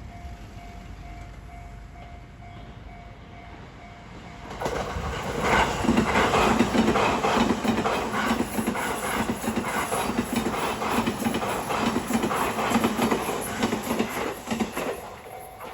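A level-crossing warning bell dings steadily and faintly, then a Sotetsu electric commuter train crosses from about four and a half seconds in. Its wheels clatter rhythmically over the rail joints for about ten seconds before the sound fades.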